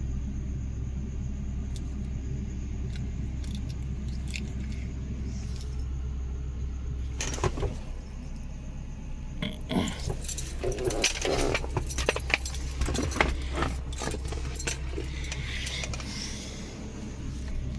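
Steady low drone of a car, with light metallic clinking and rattling that starts about seven seconds in and is busiest a few seconds later.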